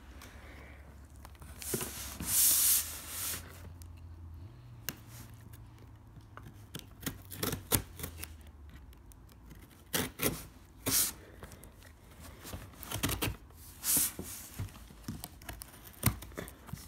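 Security seal on a cardboard box being picked at and torn off by hand: a loud scratchy tear about two seconds in, then a run of short rips, scrapes and clicks against the cardboard.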